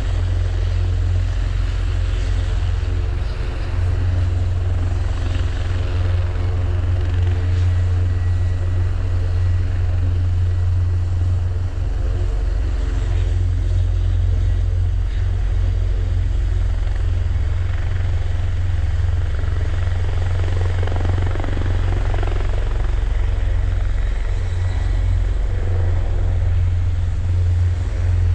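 Eurocopter EC725 / Helibras H-36 Caracal twin-turbine helicopters running on the ground with rotors turning: a steady deep rotor beat under turbine whine. The sound swells in the second half as one lifts off into a low hover.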